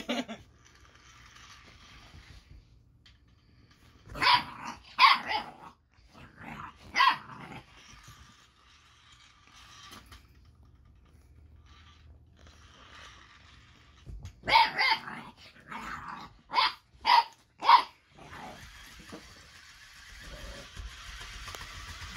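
Eight-week-old boxer puppy barking in short, sharp barks: three together about four seconds in, a single one a couple of seconds later, then a quick run of about six more past the middle.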